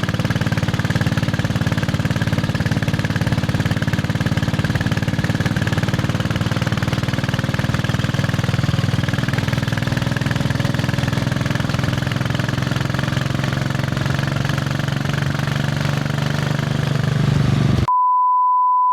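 Royal Enfield Bullet 500's single-cylinder engine running with a steady thump. Near the end it cuts off suddenly and a steady high-pitched beep tone takes over.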